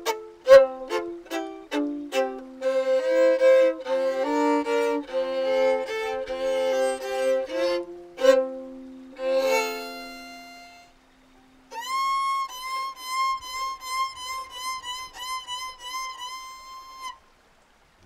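Solo violin. It opens with quick, short notes, then plays a melody over a held lower note. After a brief pause about eleven seconds in, it repeats one high note in quick bow strokes, stopping about a second before the end.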